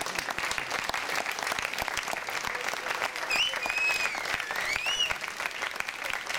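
Audience applauding after a performance. About halfway through, one long whistle cuts through the clapping, dipping and then rising in pitch.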